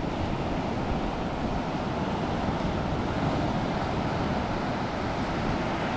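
Steady wash of surf on a beach, with wind buffeting the microphone.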